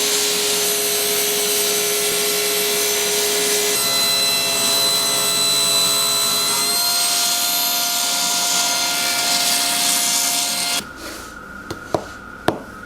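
Table saw running and cutting a piece of purpleheart: a loud, steady whine whose pitch shifts a couple of times under the cut. It cuts off abruptly near the end, followed by a few light clicks.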